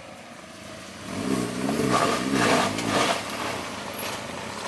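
A vehicle engine revving up and down for about two seconds, starting about a second in, then settling lower, during the winch recovery of a stuck car up a bank.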